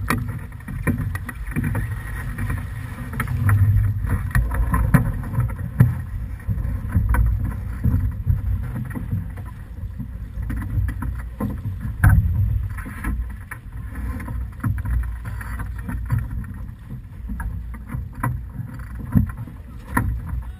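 Wind buffeting the microphone aboard a sailing keelboat under way, with scattered knocks and clicks from the deck gear as the crew work the sheets and winches.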